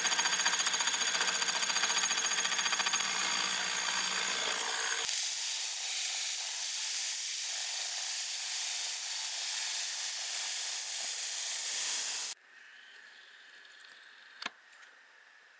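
Milling machine cutting an aluminium block with a slitting saw, with a steady high whine over the hiss of a compressed-air nozzle blowing chips off the cut. About five seconds in the whine stops and a plain air hiss carries on, then it cuts off abruptly, leaving a faint background with a single click.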